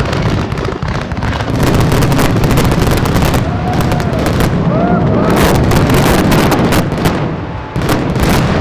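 Dense barrage of fireworks and pyrotechnic explosions: rapid, overlapping bangs and crackles, easing briefly near the end before another heavy bang.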